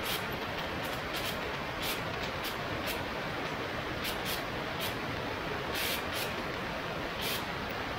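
Steady rush of airflow over a camera mounted outside a Flight Design CTSW light-sport airplane in flight, with short hissing gusts every second or so.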